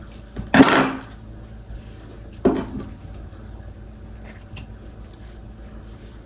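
Scissors snipping through a thick bundle of yarn to trim a tassel to length: two loud cuts, about half a second in and again at two and a half seconds, followed by a few faint small clicks.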